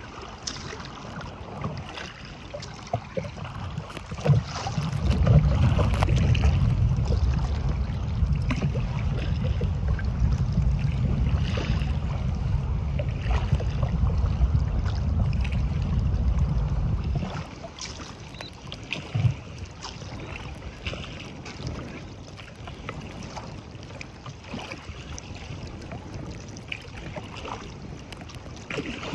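Choppy lake water splashing and slapping against a touring kayak's hull as it moves through wind-driven waves. From about five seconds in to about seventeen seconds, a heavy wind rumble buffets the microphone.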